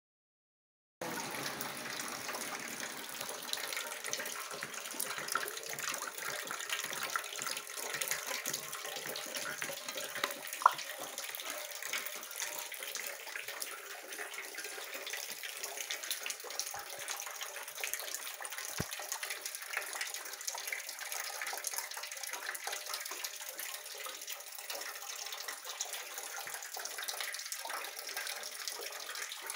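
Water from a leaking roof running and dripping steadily in a fine, even patter, with one sharp click about a third of the way in.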